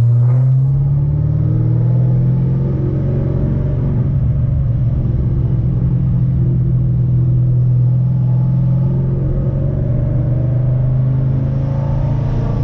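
2010 Chevrolet Camaro SS's 6.2-litre V8 running under way, its pitch rising briefly at the start and then holding steady.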